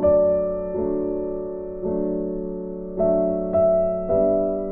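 Background music: slow piano chords, a new chord struck about once a second and fading away after each.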